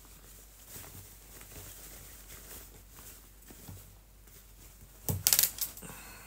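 Cotton shirt fabric and lace rustling as they are handled, with a short, much louder flurry of fabric rustle about five seconds in as the shirt is lifted and shaken out.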